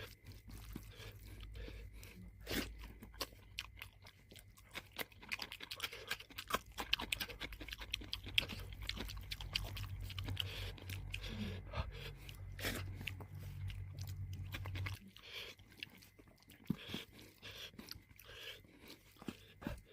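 Close-miked chewing and crunching of food, with many sharp mouth clicks. A low steady hum runs underneath and stops about three quarters of the way through.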